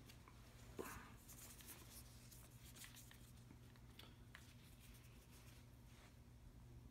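Near silence: room tone with a steady low hum, and a few faint rustles and taps from a trekking pole's grip and nylon hand strap being handled.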